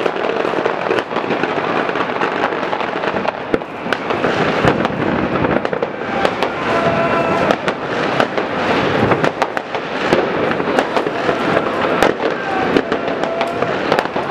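Many rockets and firecrackers going off at once across a city, in a continuous crackle packed with countless sharp bangs. A few short whistles rise out of it midway and again near the end.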